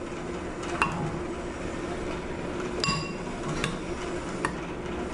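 Metal spoon clinking against a ceramic bowl while turning a boiled egg white in beaten egg: a few light clinks, the one about three seconds in ringing briefly.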